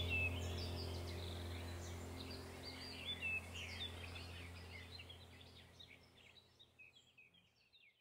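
Small birds chirping and twittering in quick, high, overlapping calls over a steady low drone, the whole sound fading out gradually to silence by the end.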